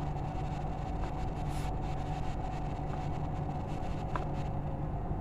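Steady low electrical hum and background noise from the amplifier test bench, with a few faint clicks as a knob is turned. No music comes through, because the speaker is not yet connected to the amplifier's output.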